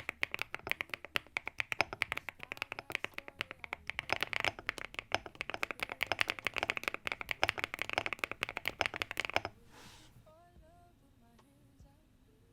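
Fast typing on an Epomaker Galaxy 100 Lite aluminium gasket-mount keyboard fitted with cherry-profile PBT keycaps: a dense, rapid run of keystroke clacks. It stops about nine and a half seconds in, and a faint, soft melody follows.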